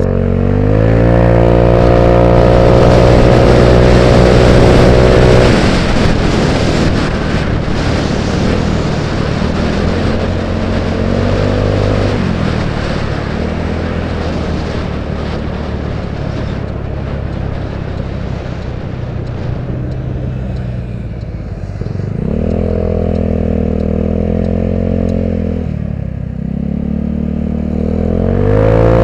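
Genuine scooter's small engine speeding up with a rising pitch, held for a few seconds, then easing off. It speeds up again several times, briefly, with steady wind and road noise on the helmet microphone in between.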